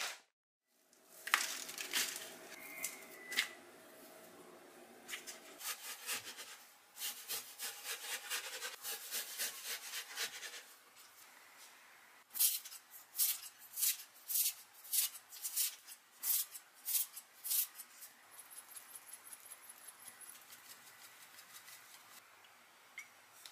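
Kitchen prep sounds while sliced raw beef is seasoned in a glass bowl: runs of light knocks and scrapes from a wooden spoon, louder sharp knocks about twice a second in the middle, then a pepper shaker shaken in quick fine rattles near the end.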